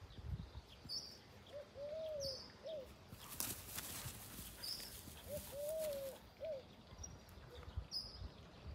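A dove cooing, two three-note phrases with the middle note longest, with a few faint small-bird chirps. A few seconds of rustling noise in the middle.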